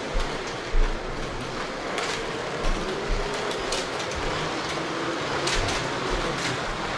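Several Carrera Digital 1/32 slot cars lapping a plastic track: a steady whir of small electric motors and wheels on the track, with scattered clicks and a few low knocks.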